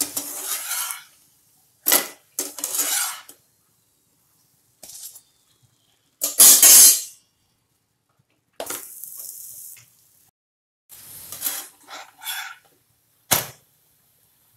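Metal spatula scraping and knocking against a non-stick frying pan as parathas are turned and pressed while they fry, with hot oil sizzling in the pan. It comes in short separate bursts, with two sharp knocks, one about two seconds in and one near the end.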